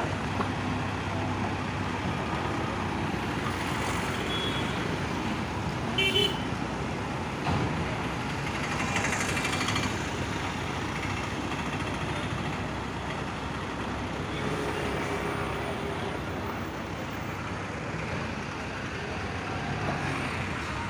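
Road roller's diesel engine running steadily among passing highway traffic, with a short vehicle horn toot about six seconds in.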